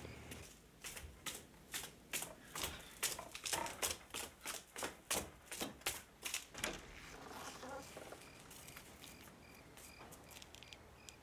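Footsteps hurrying up a staircase, quick and even at about three steps a second, stopping about seven seconds in.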